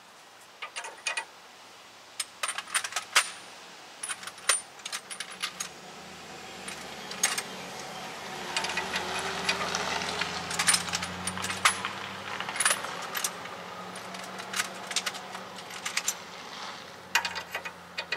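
Metal hand tools and sockets clinking irregularly against each other and the steel suspension parts while the upper ball joint nut is being fitted. A vehicle passes in the middle, a rush with a low hum that swells and then fades.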